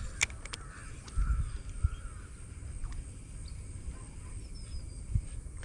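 Low rumbling thumps of wind and handling on the microphone, with a few small clicks near the start and faint bird calls in the background.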